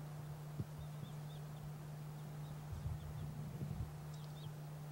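Faint, short, high chirps of small birds scattered through a steady low hum, with a cluster of low soft sounds about three seconds in.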